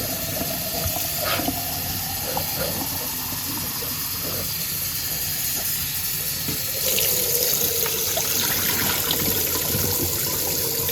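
Kitchen tap running water into a quart jar of lentils through a screen lid, in a steady rush that grows louder and brighter about seven seconds in.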